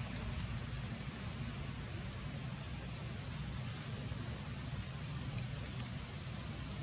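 Steady, high-pitched insect chirring from the surrounding vegetation, unbroken throughout, over a low, even hum.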